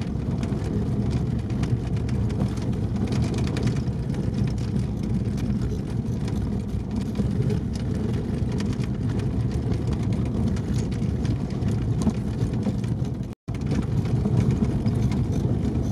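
Inside the cabin of a ZAZ-968M, its rear-mounted air-cooled V4 engine running steadily under way, with tyre noise from the snowy dirt track. The sound cuts out for an instant about 13 seconds in.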